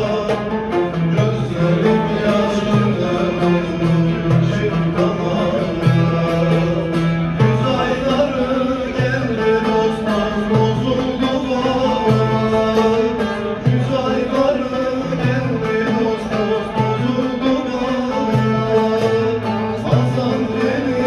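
A live Turkish folk song (türkü): a man singing to a bağlama (long-necked saz), with a frame drum.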